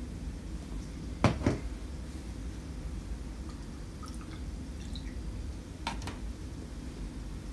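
Quiet room tone with a low rumble, broken by short sharp clicks: a pair about a second in, a few faint ticks midway and another pair near six seconds.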